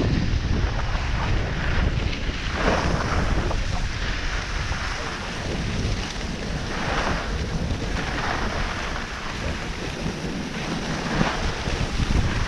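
Wind buffeting the microphone of a skier moving downhill, a rumble that is heavier for the first few seconds. Every few seconds comes the hissing scrape of skis turning on packed, groomed snow.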